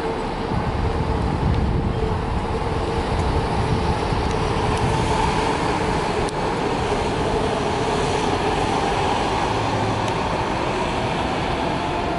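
Scania N280UB low-floor city bus driving off, its engine running steadily amid general street traffic noise.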